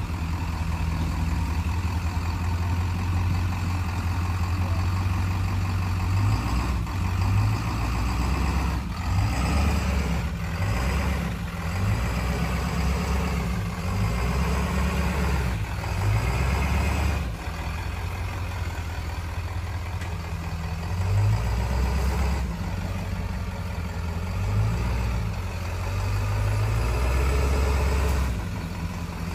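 Off-road vehicle engine running at low revs while crawling, its drone rising and falling, with a few sharp knocks along the way.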